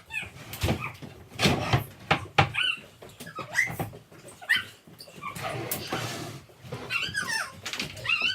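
Several short, high whining calls that bend in pitch, repeated through the stretch, mixed with sharp knocks and bangs, the loudest of them in the first few seconds.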